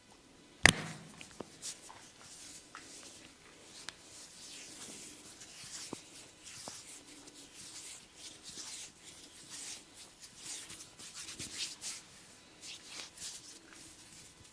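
Close-miked massage rubbing: hands working over skin and hair with a continuous hissing friction and scattered small crackles. A single sharp click sounds about a second in, the loudest moment.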